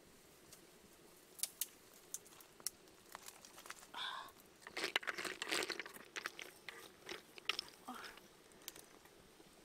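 Scattered sharp crackles and clicks, busiest about halfway through, from snails cooking in a clay pot over a wood fire and being stirred with a stick.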